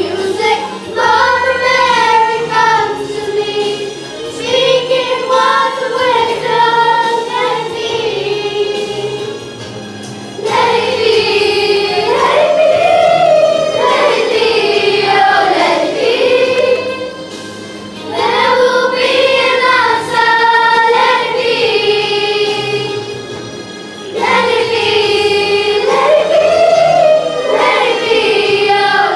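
Children singing together in a group, a slow song in sung phrases over instrumental accompaniment.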